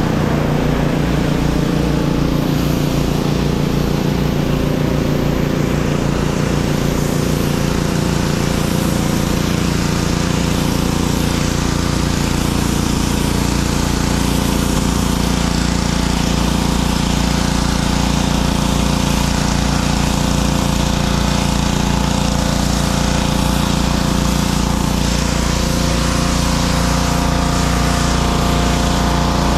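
Small gas-engine pressure washers running steadily, with the hiss of high-pressure water spray on concrete.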